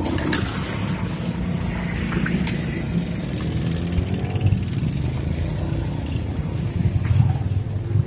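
A low, steady engine rumble, like motor traffic, with a few short knocks.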